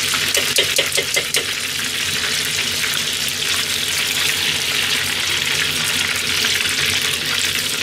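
Oil sizzling steadily as pieces of food deep-fry in a pot of hot oil. About half a second to a second and a half in come a few quick clicks, like utensils tapping the pot.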